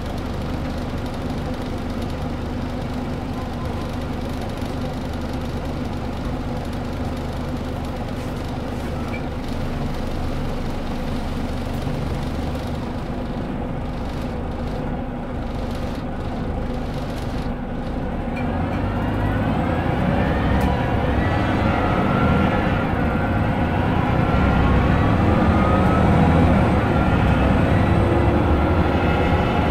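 Scania L94UB bus's 9-litre five-cylinder diesel engine running steadily, heard from inside the saloon. About 18 seconds in it picks up under load. The engine note and a whine from the ZF 5HP592 Ecomat automatic gearbox rise in pitch and grow louder as the bus accelerates.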